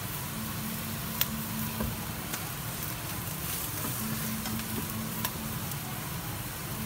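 Beef, vegetables and freshly added white rice sizzling in a hot stainless steel skillet, stirred with a spatula that clicks against the pan a few times, the loudest click about a second in.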